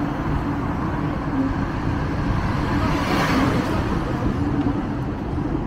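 Hong Kong tram running along its street track: a steady low rumble with a faint steady hum. A brief louder rush of noise comes a little past halfway through.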